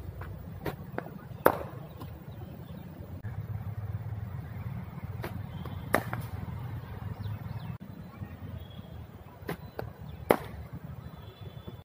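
Cricket ball pitching and then struck by a bat, three deliveries about four seconds apart: each time a softer knock is followed about half a second later by a sharp, louder crack. A steady low rumble runs underneath.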